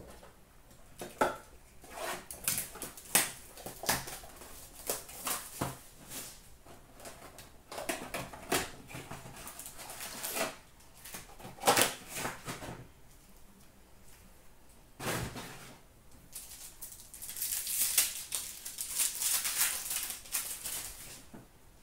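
Upper Deck hockey blaster box being handled and opened: irregular cardboard clicks, taps and short rustles of packs and cards. Near the end comes a longer stretch of dense crinkling, a card pack's wrapper being torn open.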